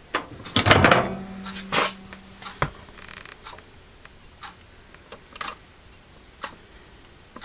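Microwave oven door clunking open, with a short hum. Then scattered light ticks and pops from the just-cooked Easy Mac cup as steam lifts its lid and lets it settle on the rim.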